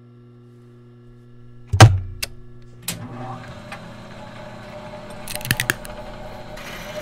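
Sound effects of a pneumatic drilling fixture: a steady machine hum, one heavy knock about two seconds in as the wooden block is set down, then a hiss with a cluster of sharp clicks as the clamping cylinder extends and clamps the block.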